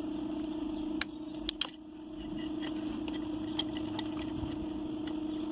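A few light metallic clicks and taps as parts are handled on a scooter's bared engine cylinder, around the studs, head gasket and cam chain, over a steady background hum. The sharpest clicks come about a second in and again half a second later.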